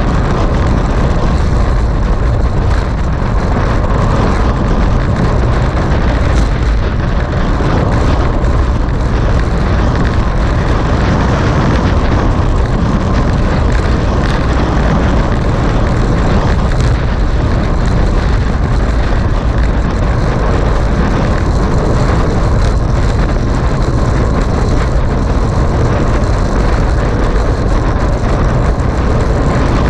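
Steady, loud wind rush and low rumble of riding a road bicycle at speed, with wind buffeting the microphone.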